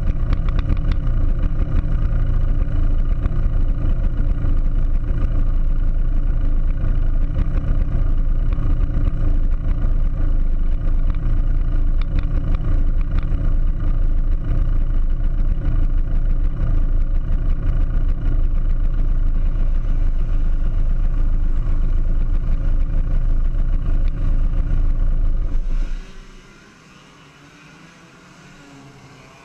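A TAG racing kart's 125cc two-stroke engine running steadily at idle, then cutting off suddenly near the end.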